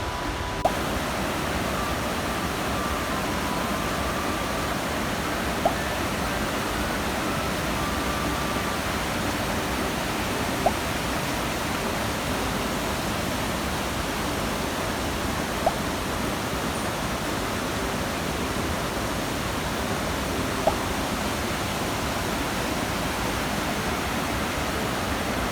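Mountain stream water rushing steadily, with a brief tick about every five seconds.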